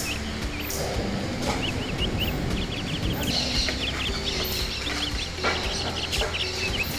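Birds chirping in quick runs of short, high calls, over a steady low rumble, with a few sharp knocks.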